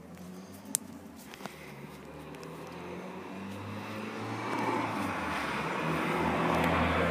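A motor vehicle engine running nearby, a steady low hum with a rushing noise that grows steadily louder, and a few light clicks in the first second or so.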